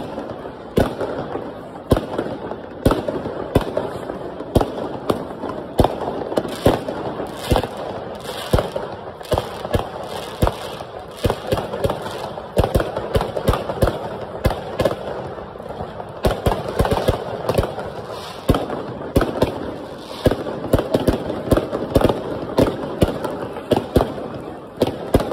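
Fireworks bursting overhead: sharp bangs in rapid, irregular succession, several a second, over a continuous din between them.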